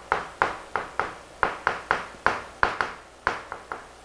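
Chalk writing on a chalkboard: a quick run of sharp taps and short scrapes as strokes are made, about three a second.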